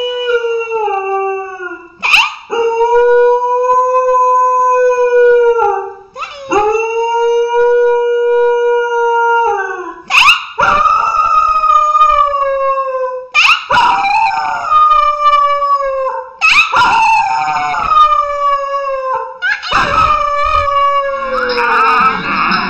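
A dog howling: a series of about seven long, drawn-out howls, each a few seconds long with short breaks between, holding a steady pitch and then sliding down at the end; the later howls slide down further. In the last second a different, busier sound takes over.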